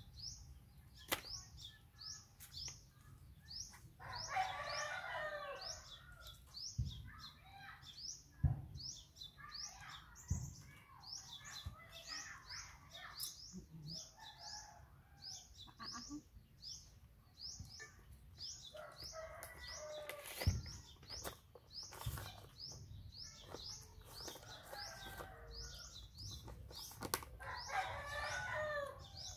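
A bird repeating a short, high, falling chirp about three times a second, with bursts of lower clucking calls now and then and a few sharp knocks.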